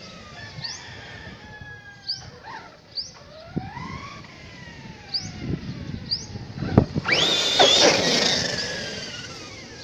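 Redcat Kaiju brushless electric RC monster truck driving on dirt, its motor whine rising and falling in pitch with the throttle. It gets loudest about seven seconds in, just after a sharp knock, then the whine falls away and fades.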